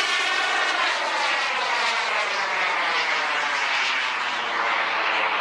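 KingTech K-80 turbine of an RC jet flying past: a loud, steady jet rush and whine whose pitch sweeps downward over the first couple of seconds as it goes by.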